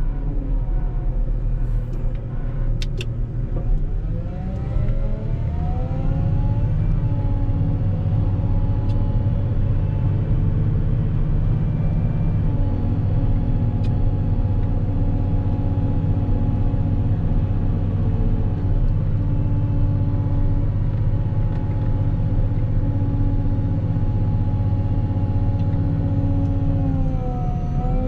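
Volvo L60H wheel loader's diesel engine running under load; its pitch rises about four to six seconds in, holds steady, then dips briefly near the end. A couple of sharp clicks come about three seconds in.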